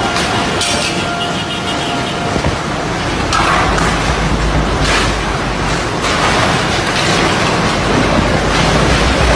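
Strong gusting storm wind and heavy rain during a tornado. The wind buffets the microphone in a deep rumble that grows heavier about halfway through, with several sharper gusts along the way.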